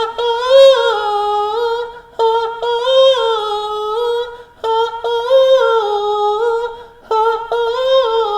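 A single high voice sings a wordless, unaccompanied hum in four held phrases of about two seconds each, gently rising and falling, with short breaks between them.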